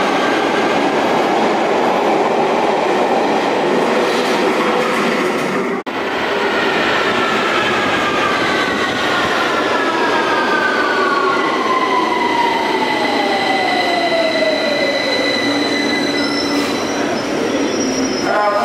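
London Underground Victoria line 2009 Stock train running into the platform and braking to a stop: a loud rumble of wheels on rail with some wheel squeal, and a whine that falls steadily in pitch as the train slows. There is a brief break about six seconds in, and steady high tones sound near the end as the train comes to a stand.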